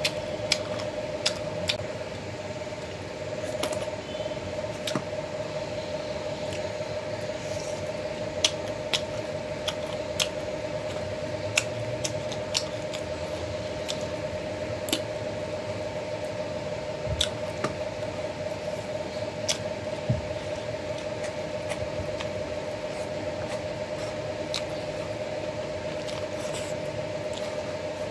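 Someone eating by hand from a steel plate: chewing and lip smacks with scattered sharp clicks, over a steady background hum.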